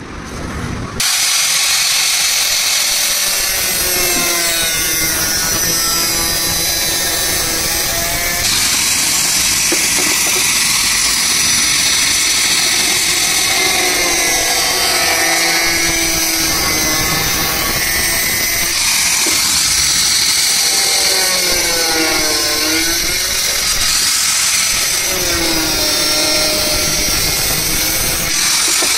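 Electric angle grinder with a thin cut-off disc cutting through square metal tube. It starts about a second in and runs steadily, its whine sagging and recovering in pitch again and again as the disc bites into the cut.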